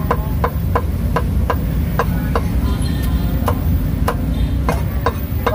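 Cleaver chopping braised meat on a thick round wooden chopping block: steady strikes about three a second, over a steady low rumble.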